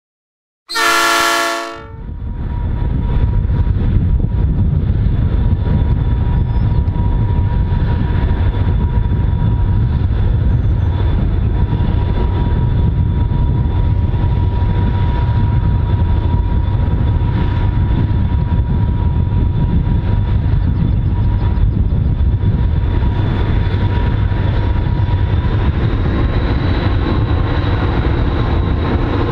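EMD SD40-2 diesel locomotive working under load on a loaded grain train: a steady deep engine rumble with a thin, steady high whine from its turbocharger. A short horn blast sounds about a second in.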